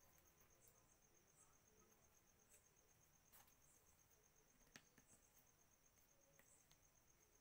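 Near silence: a faint steady high cricket trill, with a few soft clicks as the screw cap of a small glass liquor bottle is twisted to break its seal.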